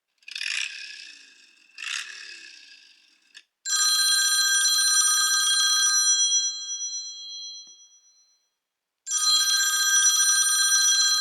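An iPhone speaker playing a telephone-bell style ringtone as a sound check on the freshly cleaned speaker. The ring is steady and multi-toned. It sounds once for about two seconds and fades out, then starts again near the end. Two shorter, softer sounds come before it.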